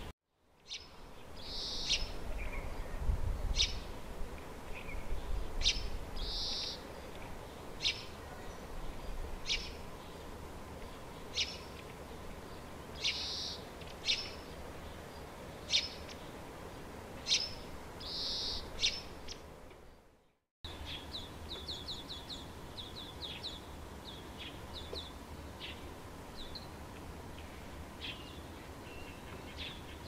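Small wild birds calling: sharp, high, short calls and brief buzzy notes repeating every second or two. After a short break about two-thirds of the way through, a rapid run of high ticking notes follows.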